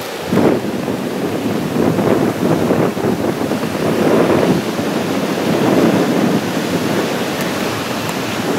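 Wind buffeting the microphone over the steady wash of ocean surf, a loud, uneven rush with no distinct events.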